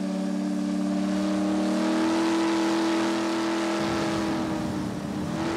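A steamboat's steam whistle blowing one long blast of two or more pitches sounding together, sliding up into pitch as it starts and stopping just before the end.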